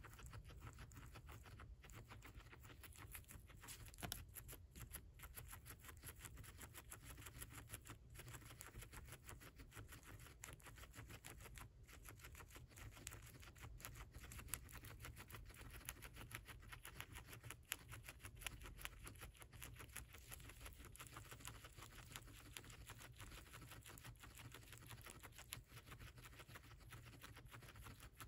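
A guinea pig chewing corn husk and silk: faint, rapid, crisp chewing clicks that go on steadily, with a few louder crunches now and then.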